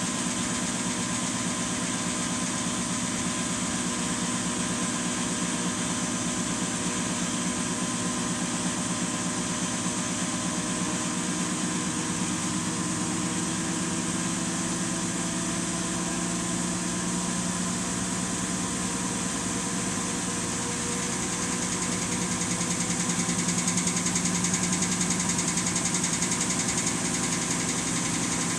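Samsung washing machine spinning: a steady motor whine with drum vibration. The whine slowly rises in pitch and the machine grows louder about three quarters of the way through as the drum speeds up.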